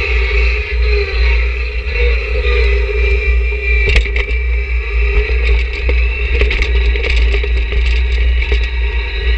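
John Deere 1026R sub-compact tractor's diesel engine and drive running steadily under load with a deep rumble and a steady high whine, while the snow pusher shoves snow. From about four seconds in, scrapes and clicks of the blade and snow come and go.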